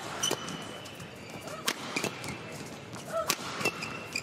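Badminton rackets striking a feather shuttlecock in a doubles rally: sharp cracks every second or so, with short high squeaks of shoes on the court and a steady hum of arena crowd behind.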